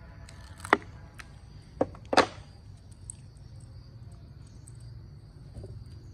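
A wristwatch being handled: a handful of short, sharp clicks and knocks, three of them loud, the loudest about two seconds in, over a steady low hum.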